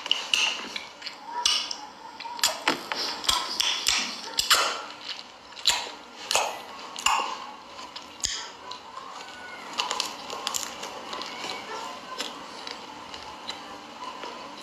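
Eating and food-handling noises: scattered clicks and crackles from a plastic food container and the food being picked up and eaten, busiest in the first eight seconds or so, then thinning out.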